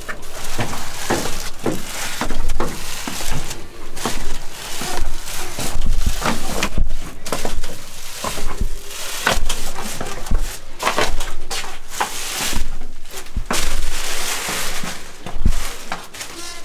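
Footsteps crunching and scuffing on gritty stone steps while walking downhill, about one step every half to three-quarters of a second, with sharp clicks of grit underfoot.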